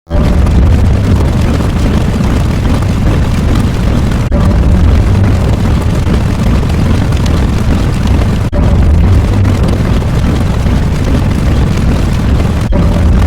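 A loud, steady rumbling noise, heavy in the bass, in the manner of an explosion or eruption sound effect. It breaks off for an instant about every four seconds, as a looped sound effect restarts.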